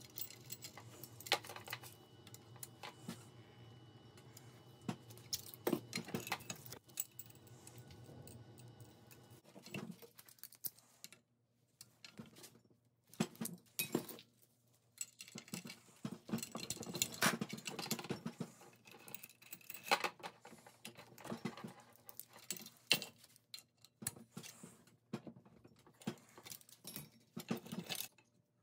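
Steel chain links jangling and clinking against a metal vise and hand tools as the chain is handled, with irregular sharp metallic clicks and clanks.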